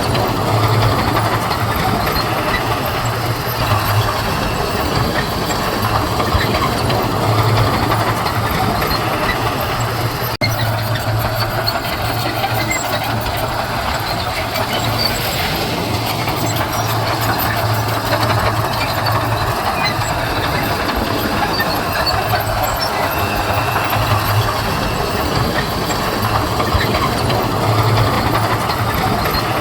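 Diesel engine of heavy earthmoving machinery running steadily under load as gravel is spread, with a low engine drone.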